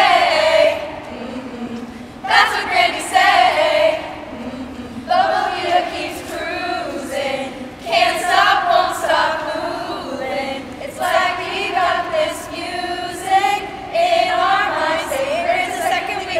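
A group of female voices singing together in phrases of a few seconds, with held notes and short breaks between lines.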